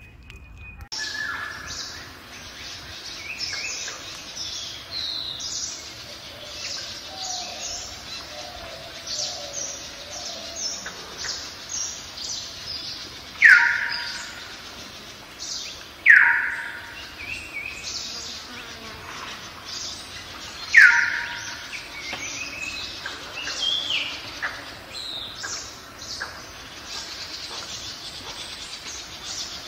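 Several songbirds singing and chirping, with many short high chirps throughout and three loud calls sliding down in pitch, a few seconds apart, in the middle stretch.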